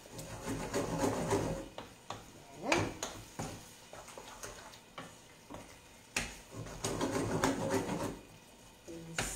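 A spoon stirring and scraping thick millet around a frying pan, in two bouts of rasping scrapes with a few light knocks against the pan between them, as the goat cheese is worked in to make it creamy.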